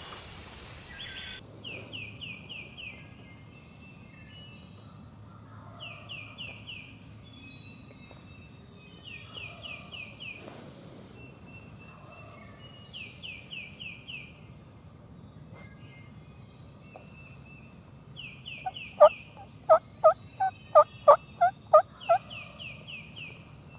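A songbird repeats a short phrase of four or five high, falling notes every few seconds. About nineteen seconds in comes a loud run of about eight turkey yelps, some three a second, the loudest sound here.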